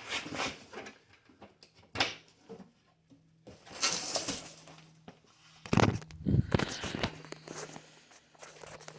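Scattered knocks and a stretch of rustling as a newly delivered fold-out toolbox and its packaging are handled and unpacked, with a steady low hum behind.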